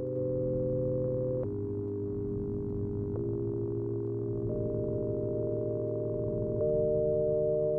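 Background music of soft, sustained synthesizer chords with no beat, moving to a new chord four times.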